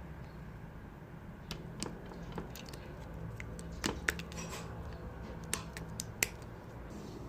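Clear slime being pressed and stretched by hand, giving off a scattering of sharp, irregular clicking pops as trapped air bursts, over a low steady hum.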